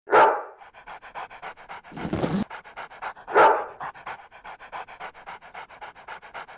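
Dog panting rapidly and steadily, about six pants a second, with two louder breaths, one near the start and one about halfway through. A short noisy rustle comes about two seconds in.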